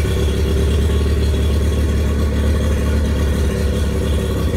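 Mercury 20 hp four-stroke carbureted outboard running steadily on choke, freshly started from cold with the pull cord.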